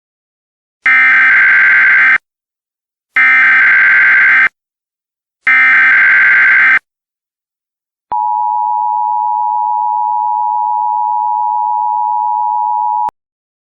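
Emergency Alert System alert: three roughly one-second bursts of SAME header data tones, then the steady two-tone EAS attention signal held for about five seconds, cutting off abruptly.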